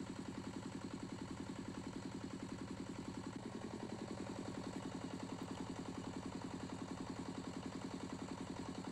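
Engine idling steadily, with a quick, even pulse of about seven beats a second.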